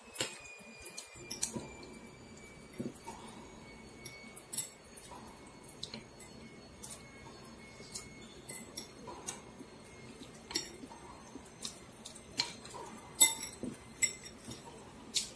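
Chopsticks and a soup spoon clinking against a ceramic bowl of noodle soup while noodles are lifted out, in irregular sharp clinks. The first clink leaves a high ring that fades over a few seconds, and the loudest comes about 13 seconds in.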